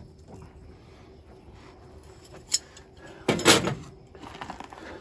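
Hinged sheet-metal lid of a Generac Guardian standby generator enclosure being opened: a sharp click about two and a half seconds in, then a louder clunk a moment later.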